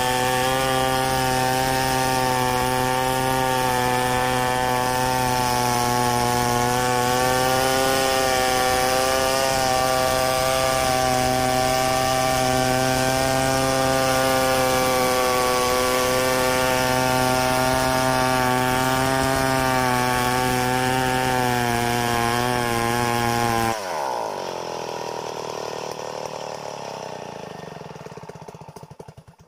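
Stihl 070 two-stroke chainsaw running steadily at full throttle as it rips a log lengthwise into boards in a freehand milling cut. About 24 seconds in the engine sound cuts off abruptly, and a fading, falling sound trails away.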